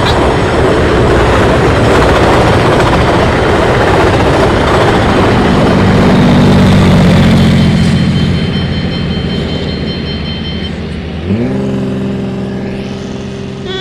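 Loaded BNSF grain train of covered hopper cars rolling past close by: a loud, steady rumble of wheels and cars. About halfway through, a BNSF diesel locomotive's engine hum swells as it passes. Near the end the rumble fades and a new steady pitched sound slides up and holds.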